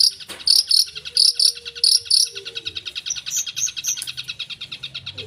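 Long-tailed shrike (cendet) singing: a run of sharp, repeated chirps, about three or four a second, that stops about two seconds in, followed by a few higher notes. A fast, even ticking trill runs underneath throughout.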